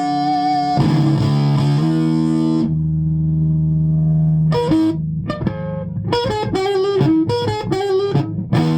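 Electric guitar played through a Laney LA30BL amp, which adds a weird flanging sound: the fault in question. Held chords ring first, then a single low note is held, and from about halfway a run of separately picked notes follows.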